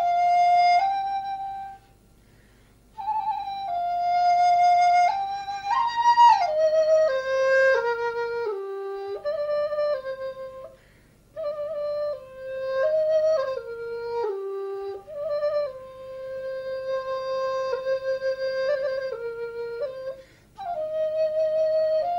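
Background music of a solo flute playing a slow melody, in phrases broken by several short pauses.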